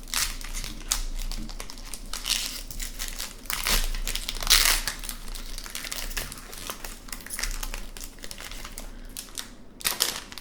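A hockey card pack's wrapper being torn open and crinkled in the hands, an irregular crackling that gets louder about halfway through and again near the end.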